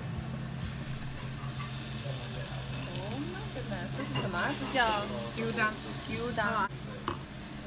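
Thin slices of raw beef sizzling on a gas tabletop yakiniku grill, a steady hiss that starts about half a second in and cuts off suddenly near the end.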